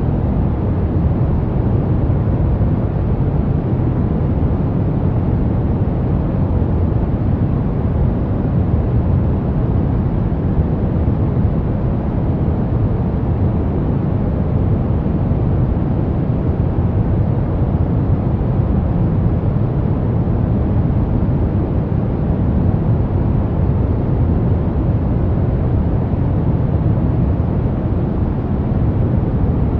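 Soft brown noise: a steady, even rumbling hiss weighted toward the low end, with no change or events.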